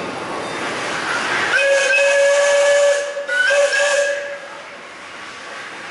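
Steam locomotive whistle blown in two blasts, a longer one and then a shorter one with a brief break between. Steam hiss comes before the first blast.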